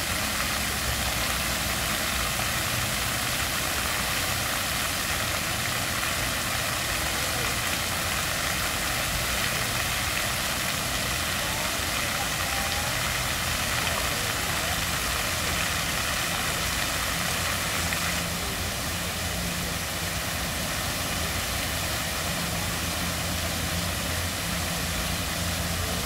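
Water fountain jets splashing into their pool, a steady rushing hiss over a low steady hum, easing slightly about two-thirds of the way through as the spray pattern changes.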